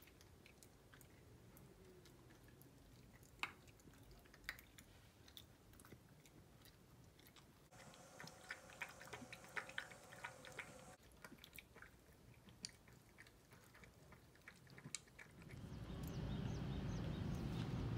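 Toy poodle crunching dry kibble from a bowl: scattered crisp crunches, coming thick and fast for a few seconds midway. Near the end a louder steady low rumble takes over.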